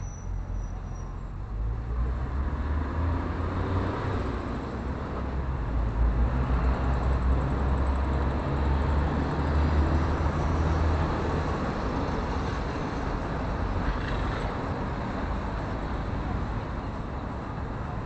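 Street traffic with a low vehicle engine rumble that builds over the first few seconds, is loudest about six to eleven seconds in, then eases to a steady traffic hiss.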